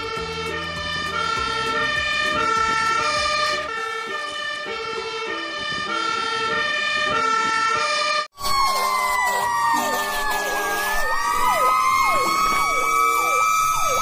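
Fire engine sirens. First a two-tone siren switches steadily between a high and a low note. After a cut about eight seconds in, a wailing siren rises and falls slowly, with a faster yelping siren sweeping over it.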